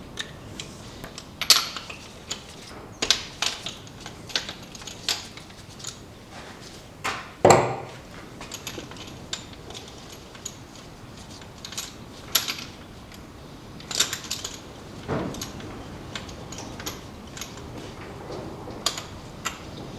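Irregular clicks and clinks of hand tools and metal parts as the old spark plug leads and spark plugs are taken off a car engine, with a louder knock about seven and a half seconds in.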